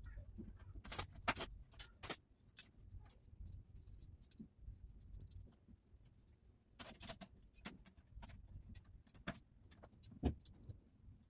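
Metal wire dish drying rack being assembled on a countertop: scattered clicks and clinks as the frame parts are fitted into the drip tray, with a louder knock about ten seconds in.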